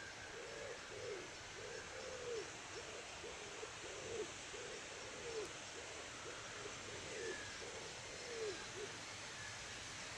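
A bird's low hooting calls, about a dozen short notes that each rise and fall, repeated every half second or so and stopping near the end. Fainter high, short peeps sound over them.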